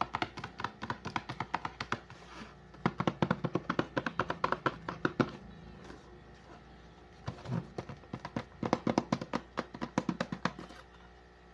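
Rapid runs of sharp taps or clicks, several a second, in four bursts with short pauses between, over a faint steady hum.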